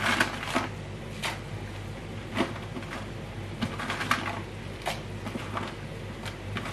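Dried red chillies being dropped by hand into a stainless steel pot of simmering water: scattered light ticks and taps at irregular times, over a steady low hum.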